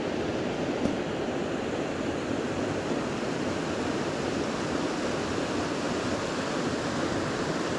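Creek water rushing steadily over a rocky riffle into a pool, an even rushing sound.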